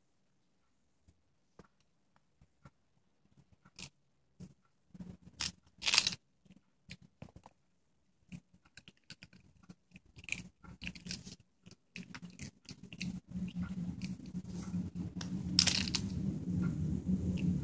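A Chihuahua gnawing and crunching a chew treat: irregular crunches and clicks, a few of them sharp and loud. About two-thirds of the way in, a low steady growl starts and keeps on as she guards her treat.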